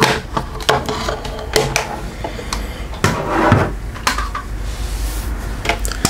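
Handling noise: a plastic power adapter, its cord and the multimeter's test leads being picked up, moved and set down on a wooden table, a run of irregular clicks and knocks with short scrapes.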